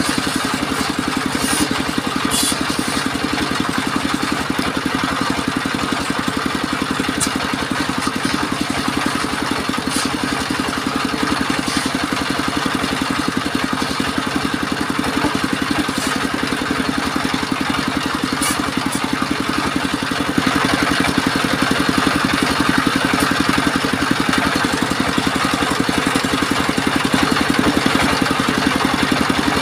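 Engine-driven portable circular sawmill running steadily, with a few light clicks; it gets louder about twenty seconds in.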